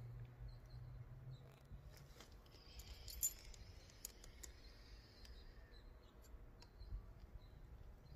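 Near silence: a faint low hum and a few scattered small clicks, the strongest about three seconds in.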